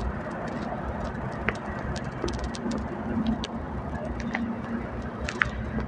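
Traffic noise heard from inside a slow-moving vehicle: a steady low engine and road rumble, with scattered light clicks.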